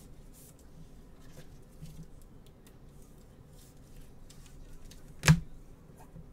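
Soft handling noise of trading cards and their cardboard box under gloved hands: faint rustles and small ticks, with one sharp knock a little over five seconds in.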